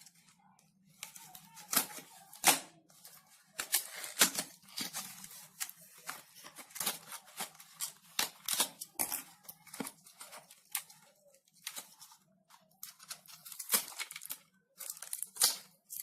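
A cable's retail packaging being opened by hand: a busy run of sharp rips, crackles and clicks, with short pauses between bouts.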